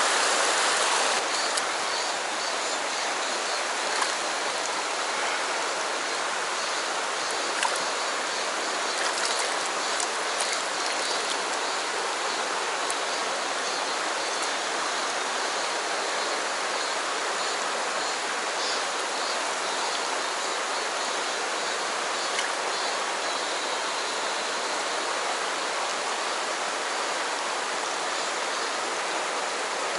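Shallow mountain stream rushing over rocks, a steady rush of water, dropping a little in level after the first second or two. A few faint clicks sound over it about 4 and 8 seconds in.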